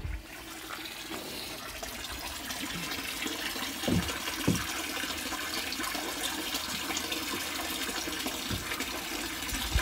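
Water rushing and splashing steadily in a fish tank, building up over the first second, with two short low knocks about four seconds in.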